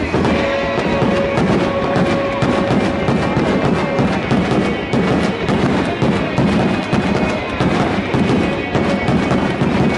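Music plays over a fireworks display. Beneath it, shells thud and sparks crackle in a steady stream of pops.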